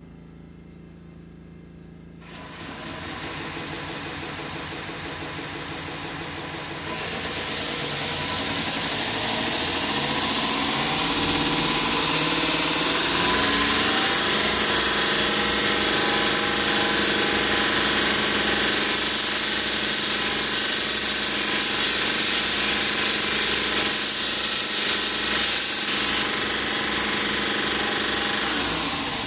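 Grizzly 2x42 belt grinder with a 120-grit belt running, with a high-carbon steel bar being ground on it. A faint hum is joined about two seconds in by the hiss of abrasive on steel, which grows louder from about seven seconds in and stops just before the end.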